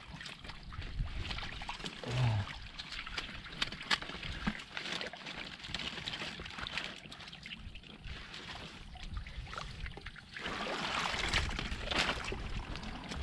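Hands groping and squelching through shallow muddy water, with sloshing and trickling, and a low thump about two seconds in. The sloshing grows louder and denser from about ten seconds in.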